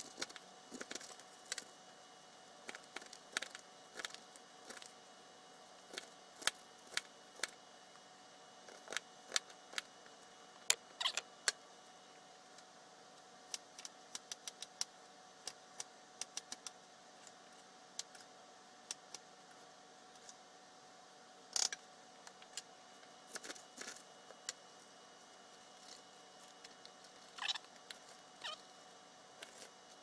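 Kitchen knife cutting through cabbage: faint, irregular crisp crunches and clicks, sometimes several in quick succession, over a steady low background hum.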